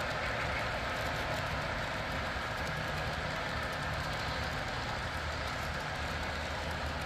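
Model passenger train rolling past on the layout's track: a steady rolling hiss from the cars' wheels on the rails, with a low hum underneath.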